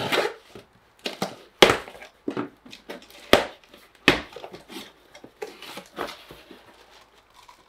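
A cardboard packing box being handled and opened: flaps rustling and several sharp knocks as the box and the parts inside bump about, the loudest three coming between about one and a half and four seconds in.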